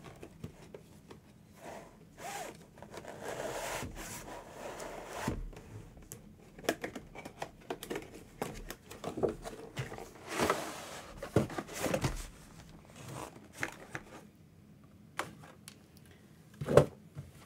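A cardboard display box being handled and its inner tray slid out of the outer sleeve: irregular cardboard scraping and rubbing, broken by scattered taps and knocks.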